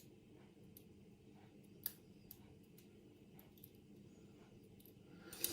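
Faint small metallic clicks of lock pins and tools being handled while working a euro cylinder lock, with two sharper clicks, one at the start and one about two seconds in.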